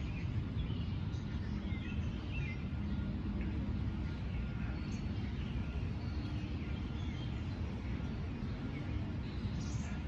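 Outdoor park ambience: a steady low rumble, with faint small-bird chirps scattered through it.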